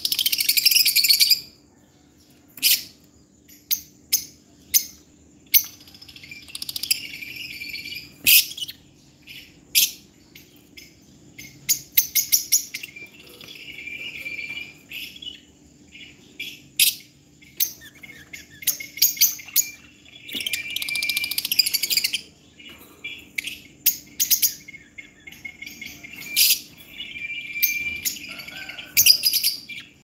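Caged lovebirds chirping: sharp, high-pitched single calls about a second apart, broken by several spells of rapid chattering that each last a second or two.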